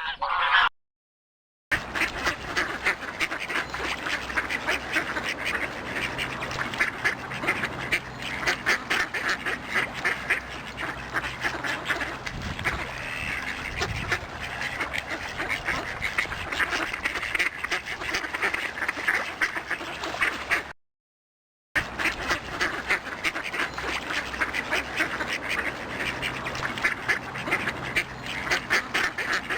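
A flock of ducks quacking in quick, overlapping calls. The quacking stops for a second of silence just after the start and again about two-thirds of the way through.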